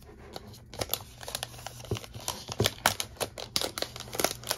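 Thin clear plastic protective wrap on a new laptop crinkling in irregular crackles as it is pulled back and handled, starting about a second in.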